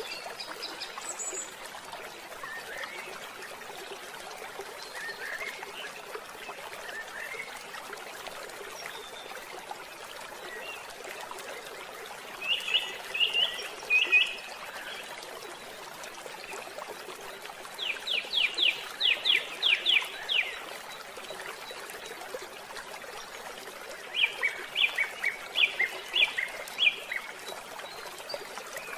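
Birdsong over a steady rush of running water, like a stream. Groups of quick chirps and trills come about 12, 18 and 24 seconds in.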